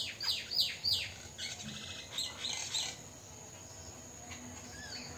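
Mynas squabbling: a quick run of harsh calls that drop steeply in pitch, then more chattering for a couple of seconds before they quieten to a few scattered calls.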